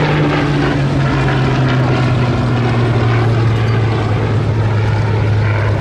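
Rolls-Royce Merlin piston aero-engine drone of a propeller warbird flying past, loud and steady, its pitch sliding slowly downward as it passes.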